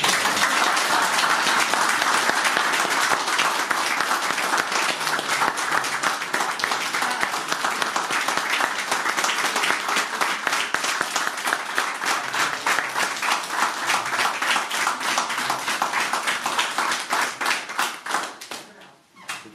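A small audience applauding: dense clapping that starts at once and thins out and dies away near the end.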